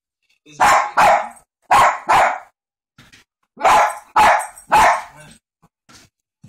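Small miniature dachshund barking excitedly at a laser dot: about seven sharp, high barks, mostly in quick pairs.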